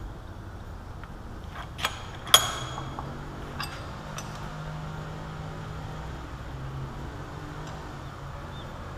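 Sharp metal clinks of steel parts being handled in a milling-machine vise fixture: two clinks about two seconds in, the second the loudest, then a couple of lighter taps, over a low steady hum.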